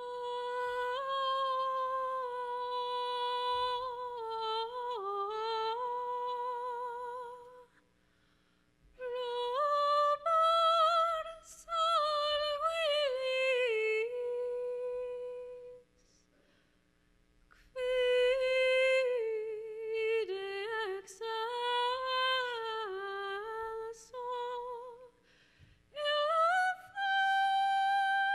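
A woman's voice singing slow, wordless phrases of long held notes with vibrato, unaccompanied. It comes in four phrases with short silences between them.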